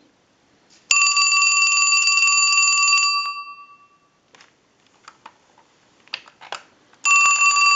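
Western Electric Trimline telephone's mechanical bell ringing on a test ring cycle, with the ringer turned all the way up: a ring of about two seconds that rings out, then a few small clicks, then the next ring starts about four seconds later near the end.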